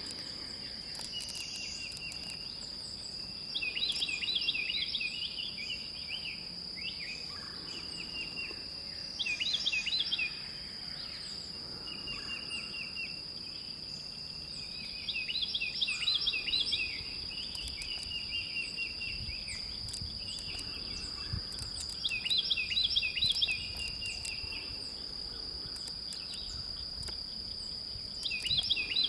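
Steady high-pitched insect drone, with a bird singing short repeated phrases of chirps about every five to six seconds.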